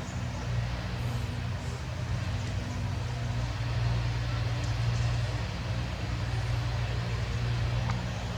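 An engine running steadily nearby, a low, even hum that holds at the same pitch.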